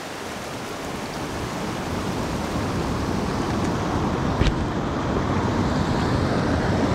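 Steady rush of a mountain creek running over boulders, growing louder as it goes on, with a single sharp knock about four and a half seconds in.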